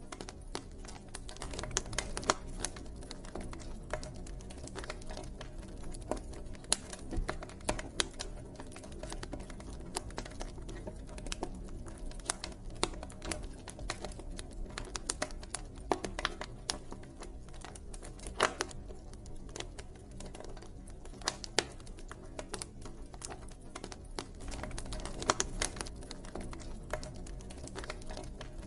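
Wood fire burning, with irregular crackles and scattered louder pops over a steady low rumble of the flames.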